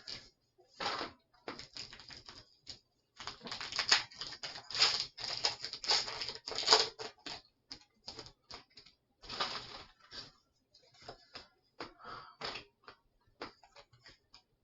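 Pokémon card booster pack being opened: the foil wrapper crinkling and tearing, with cards clicking and sliding as they are handled. The crinkling is densest in the middle and thins to scattered clicks near the end.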